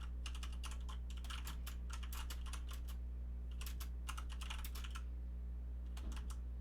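Typing on a computer keyboard: quick runs of keystroke clicks with short pauses, stopping about five seconds in. A steady low electrical hum sits underneath.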